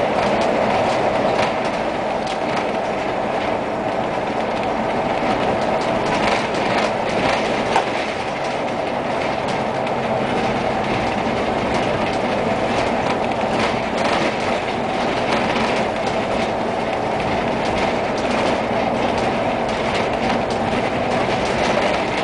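Steady engine and road noise heard aboard a moving vehicle driving on city roads, with scattered small knocks and rattles.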